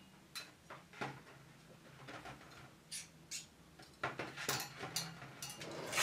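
Metal needles of a domestic flatbed knitting machine clicking lightly as fur yarn is worked over them by hand: a few scattered clicks, then a quicker run of clicks from about four seconds in. Right at the end the carriage starts sliding across the needle bed with a loud swish.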